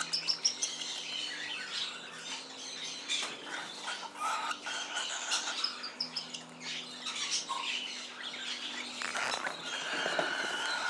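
Cockatiel chicks giving a string of short, scratchy squawks and chirps while being hand-fed: the begging calls of a strong feeding response.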